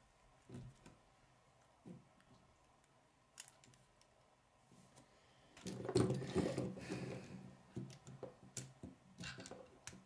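Plastic K'nex rods and connectors clicking and rattling as they are handled and fitted together. A few small separate clicks at first, then a louder stretch of rattling and rubbing from about six seconds in.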